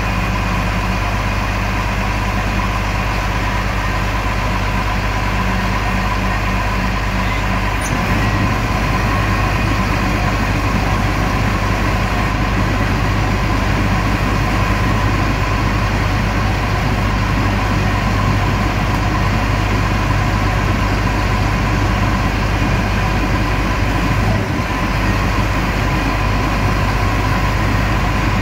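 Kenworth T360 tow truck's diesel engine running steadily while it powers the winch pulling a crashed Isuzu truck up onto its tilt tray, with a steady whine above the engine. The engine note changes about eight seconds in.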